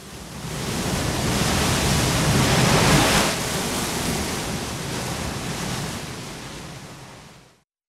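Sea-surge sound effect: a rushing wash of noise like surf that swells to its loudest about three seconds in, then slowly fades and stops shortly before the end.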